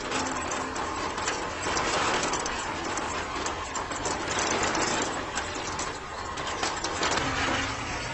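Steady rattling clatter of many small hard pieces tumbling together, dotted with sharp clicks.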